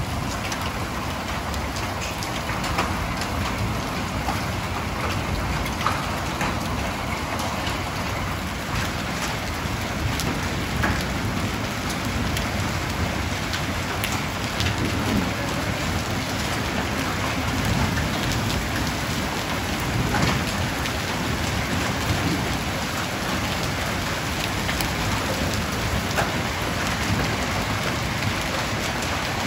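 Heavy rain mixed with hail pelting the ground and nearby surfaces: a steady, dense hiss with scattered sharp ticks of hailstones striking.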